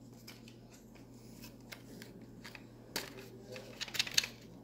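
Cardboard trading card theme deck box being handled and opened: faint rustles and light clicks, then a cluster of sharper crinkles and clicks about three seconds in.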